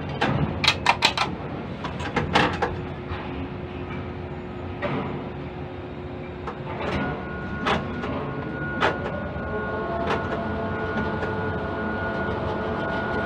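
Ship-to-shore quay crane heard from its operator's cab: a few sharp clicks and clanks about a second in and again a second or so later, then the steady hum of the hoist drive lifting a container off a truck chassis, with a thin high whine coming in about seven seconds in and the hum slowly growing louder.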